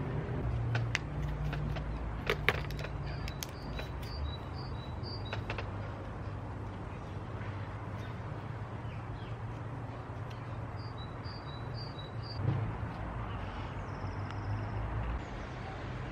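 Garden ambience: a small songbird sings two short phrases of quickly repeated two-note whistles over a steady low background rumble. In the first few seconds there are a few sharp clicks and rustles of paper being handled.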